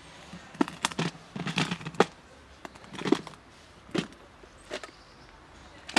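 Plastic snap-lock food container being handled and unlatched: a series of sharp plastic clicks and knocks at irregular intervals, some in short clusters, as the lid clips are worked open.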